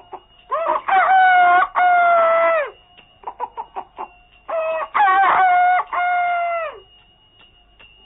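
Rooster crowing twice, each crow a few short notes leading into a long drawn-out final note that falls away at the end, with a few short clucks between the two crows.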